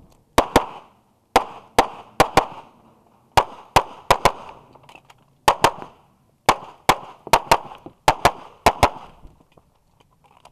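Semi-automatic pistol firing about twenty shots, mostly as quick pairs a fraction of a second apart with short pauses between pairs, as in double taps on each target. The firing stops about a second before the end.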